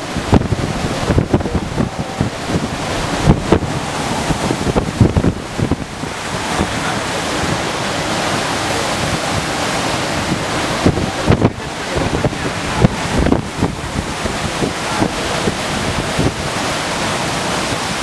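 Hurricane-force wind gusting hard against the microphone, over the steady rush of storm-surge floodwater. The gusts are strongest in the first few seconds and again a little past the middle.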